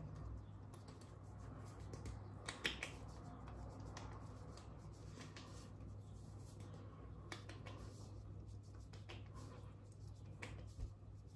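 Faint, scattered soft taps of fingertips patting talcum powder onto the face, over a steady low hum.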